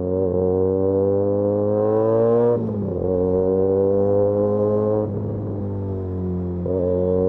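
Benelli 302S parallel-twin engine through an Austin Racing titanium aftermarket exhaust, accelerating under load. The pitch climbs steadily and drops at gear changes about two and a half seconds in and again around five seconds in.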